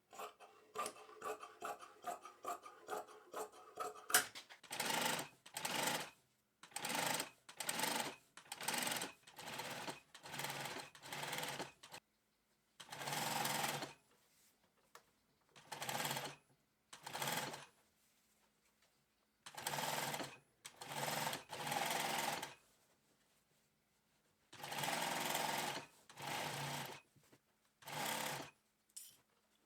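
Sewing machine stitching upholstery fabric in short runs of about a second each, stopping and starting with pauses between.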